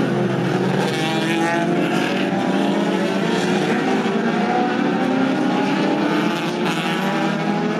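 Several classic racing saloons' engines revving hard together as the cars run in a pack through a corner, their pitches rising and falling one over another.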